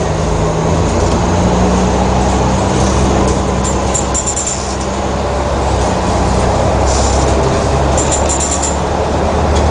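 Volvo B12M bus's DH12 12-litre six-cylinder diesel engine running steadily, its note stepping up about a second in and shifting again later, with a few brief high rattling clicks.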